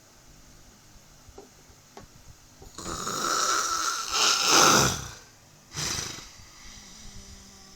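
A sleeping person snoring: quiet at first, then one long, loud snore starting about three seconds in. A shorter snore follows about a second after it ends.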